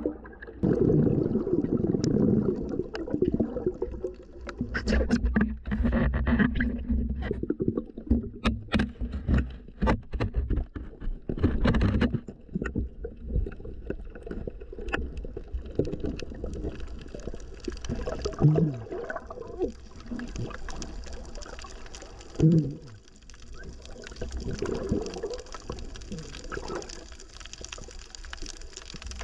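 Muffled underwater sound: water moving and gurgling around the camera, with many sharp clicks and knocks through the first half and two short low gliding sounds in the second half.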